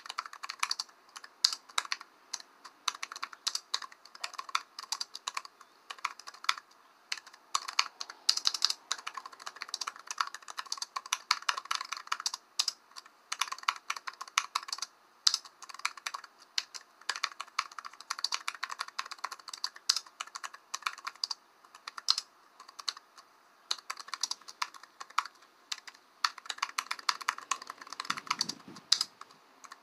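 Typing on a computer keyboard: quick, irregular runs of key clicks with brief pauses between them. A soft low thud sounds near the end.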